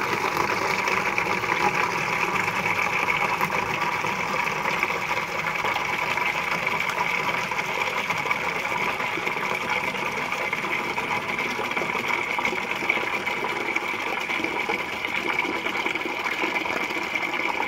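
Water pouring steadily from a tap into a clear plastic fridge drawer that is being filled about halfway, a continuous stream running into the water already in it.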